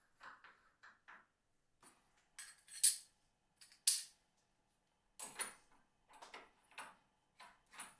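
Metal clinks and light scrapes of an ER40 collet and collet nut being handled and fitted onto a lathe collet chuck, with two sharper clinks about three and four seconds in and softer ones after.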